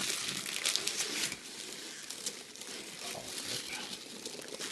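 Packaging being handled and pulled open, a dense crinkling and rustling, loudest in the first second and a half and then a softer steady rustle.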